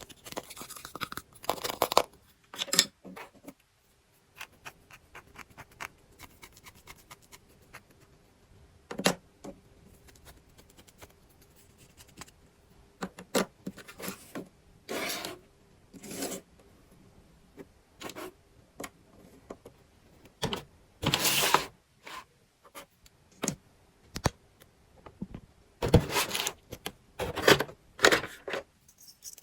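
Hands unboxing and handling small plastic toys: scattered clicks, scrapes and rustles of plastic pieces and packaging, with short pauses between them.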